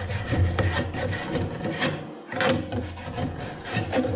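Hand wire brush scrubbing over aluminum TIG weld beads in quick back-and-forth strokes, about three a second, with a brief pause about two seconds in.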